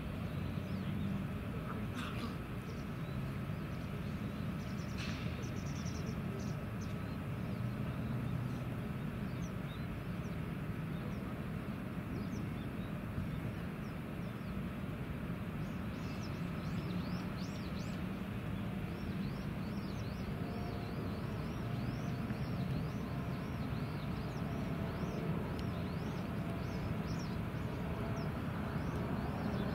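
Steady low rumble of distant jet engines from aircraft high overhead. From about halfway on, small birds chirp repeatedly.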